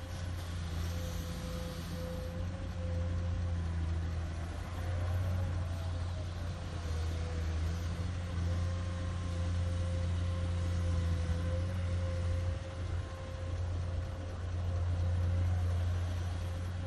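Komatsu PC210 hydraulic excavator's diesel engine running under load as it swings and digs sand, a steady low drone with a thin, steady higher tone above it, swelling and easing in loudness as the work goes on.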